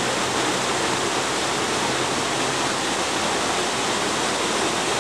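Steady, even rushing noise with no breaks and no rise or fall, like running water. A faint low hum runs under it and stops a little past halfway.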